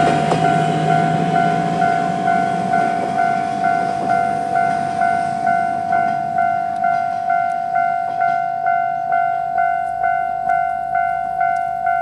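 Japanese railway level-crossing electronic warning bell ringing a steady, evenly repeating ding, a little over two strikes a second, the crossing still active with its barriers down just after a train has passed. The departing diesel railcar's rumble fades out over the first two seconds or so.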